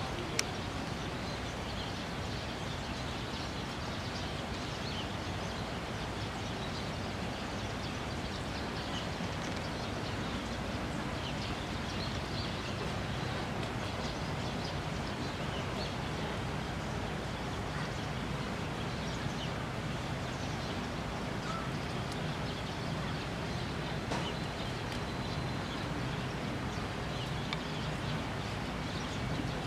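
Steady outdoor background noise, an even hum and hiss, with faint, scattered short high chirps from small birds.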